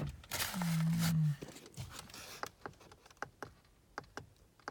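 Small plastic buttons clicking again and again, about three presses a second, as the instrument cluster display is scrolled toward the odometer reading. Near the start, a brief low steady hum with a rush of noise runs for about a second.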